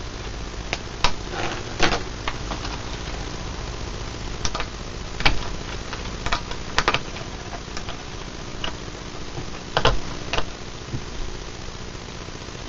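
Irregular clicks and crackles of wires and terminals being unplugged and connected at a small one-valve radio, over a steady low hum.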